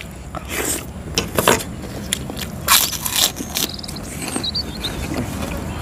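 A person eating jumbo bakso meatballs at close range: bites, slurps and chewing noises in a handful of short, sharp bursts.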